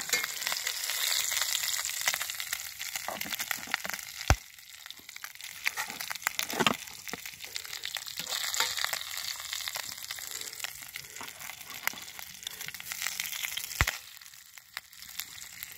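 Meat frying in a cast iron skillet over a wood fire: a steady sizzle thick with small crackles and spits. Two sharp knocks, about four seconds in and near the end.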